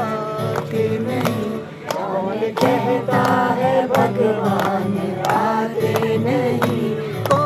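A group singing a Hindu devotional bhajan to an acoustic guitar, with hand-clapping in time.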